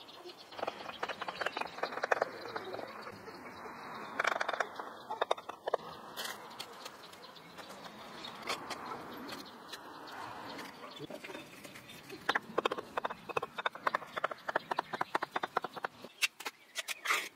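Bricklaying at a ring of red clay bricks: mortar being scraped and pressed into the joints, heard as several bursts of quick scraping clicks. Birds call in the background.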